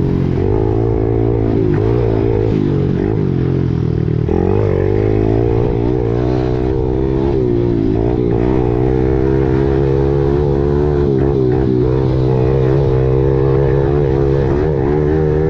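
Kawasaki KLX110 pit bike's small single-cylinder four-stroke engine running hard on a dirt trail, its pitch rising and dipping several times in the first half as the throttle and gears change, then holding steadier. Heard close up from the bike's onboard camera.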